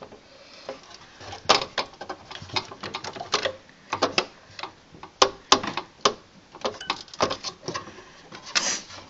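Irregular hard clicks, taps and scrapes of a motherboard knocking against the computer case and its standoffs as it is worked into position.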